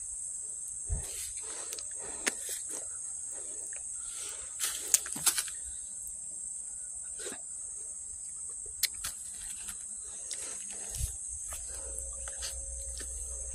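Steady high-pitched chorus of insects, with scattered sharp clicks and knocks over it, several clustered about four to five seconds in.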